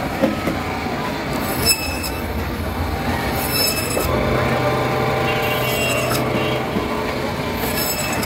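Electric band saw running, its blade slicing a whole hilsa fish into steaks. A steady mechanical whine with metallic squeal, and a high scraping hiss that comes back roughly every two seconds.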